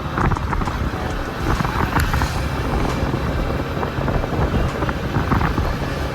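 Motor vehicle running, with wind on the microphone.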